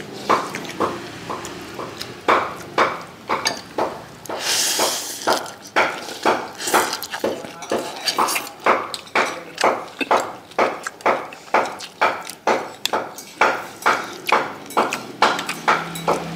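Spoon and chopsticks knocking and scraping against a plate as a bowl of rice noodles with vegetables is stirred and mixed, in a steady run of about two to three clinks a second. A brief hiss comes about four to five seconds in.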